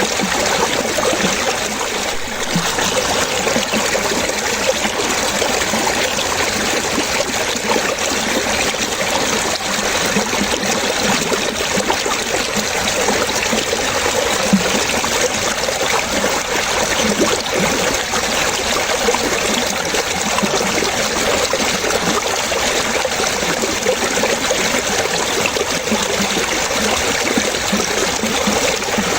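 Water splashing and trickling steadily, like a small stream running over stones.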